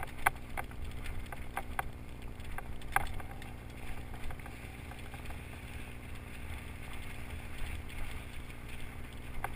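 Mountain bike riding along a dirt and leaf-litter trail, heard from a camera on the moving bike: a steady low rumble of wind and tyres, with sharp rattling clicks and knocks from the bike over bumps in the first three seconds.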